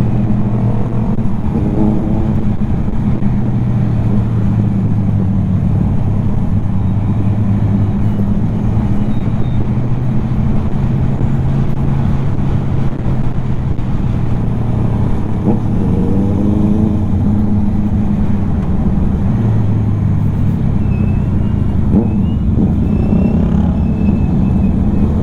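Motorcycle engine running steadily on the move, its pitch climbing several times as it accelerates.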